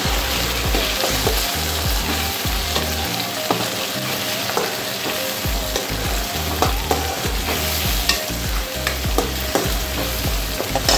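Chopped onion and tomato sizzling in hot oil in a non-stick pan, stirred with a spatula that gives irregular scrapes and clicks against the pan.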